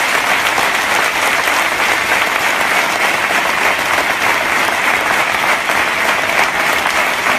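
Large seated audience applauding steadily, a dense, even clatter of many hands clapping together.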